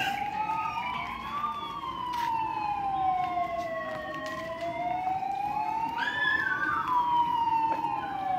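Two fire-engine sirens wailing together, each rising and falling slowly about every four to five seconds, out of step with each other.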